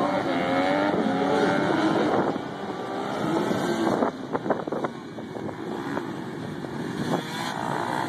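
Several supermoto dirt bike engines revving up and down as the bikes race round the course, the pitch rising and falling with each throttle change. A few sharp knocks come about halfway, and the engines build again near the end.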